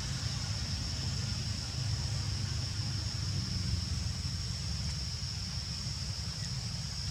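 Steady outdoor background noise: a low, wavering rumble like wind on the microphone, with a constant high-pitched whine above it.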